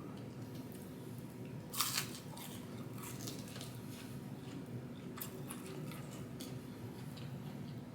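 Close-miked eating of McDonald's food: a loud double crunch of a bite about two seconds in, then soft chewing with small wet clicks, over a faint low steady hum.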